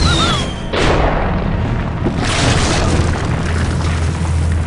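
Cartoon flare gun firing: a short falling whistle, then two loud booming bursts about a second and a half apart, over a low steady music bed.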